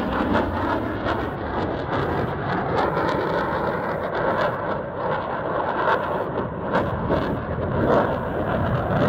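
Jet noise from a Eurofighter Typhoon's twin EJ200 turbofans as the fighter flies its display: a loud, steady rushing noise with crackling all through.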